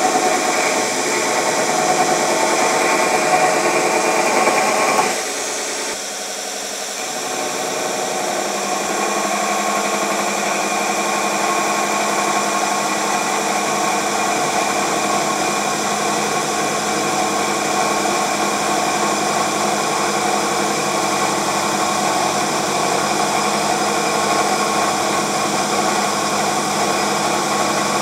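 Vevor 1x30 belt grinder grinding a piece of steel: the abrasive belt hisses against the metal over the steady hum of the running machine. About five seconds in the grinding eases off for a second or two, then carries on steadily. The motor holds its speed under heavy pressure, with no sign of the belt slipping or the motor stalling.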